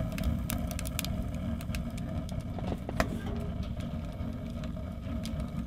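Small Trekker tent wood stove burning hard: a steady low rumble with scattered sharp crackles and pops from the fire.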